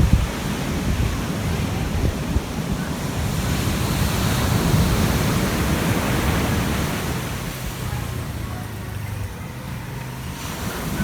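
Ocean surf breaking and washing up the beach, with wind buffeting the microphone. The wash swells toward the middle and eases off near the end.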